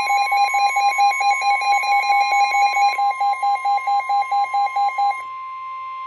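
NOAA Weather Radio's steady 1050 Hz warning alarm tone, the alert that comes before a warning is read, with a second weather radio's own alert beeping rapidly over it, about four beeps a second. The beeping stops about five seconds in, leaving the steady tone alone.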